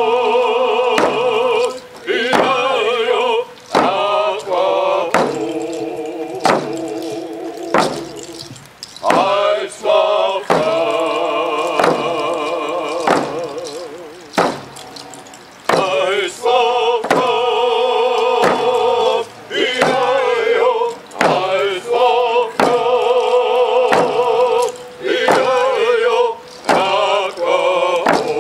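Squamish Nation singers chanting a song in unison over frame hand drums struck in a steady beat. The voices pause briefly now and then while the drumming carries on. The performers call it a canoe song.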